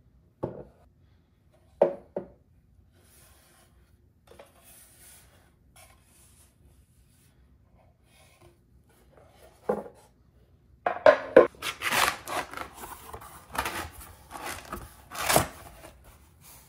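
Bamboo serving tray handled on a stone countertop: a few light wooden knocks and taps, then, past the middle, a longer stretch of rustling and scraping as a sheet of brown packing paper is slid off the tray.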